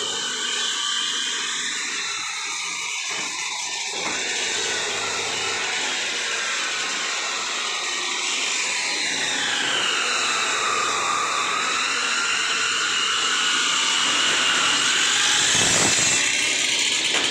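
Woodworking power tool running steadily on wood. Its whine drops in pitch about nine seconds in and climbs back by about fourteen seconds.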